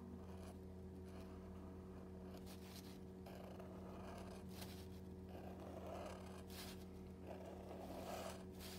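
Felt-tip Sharpie marker drawing curved strokes on paper: faint scratching, several strokes in a row, mostly in the second half, over a steady low hum.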